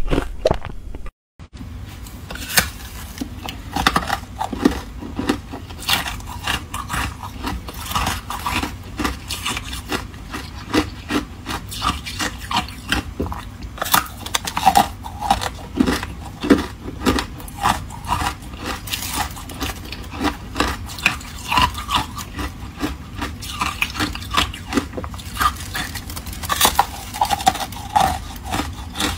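Thin ice being bitten and chewed, with many sharp crunches and cracking snaps. The ice is a thin sheet coated in matcha powder. The sound starts after a brief dead gap about a second in.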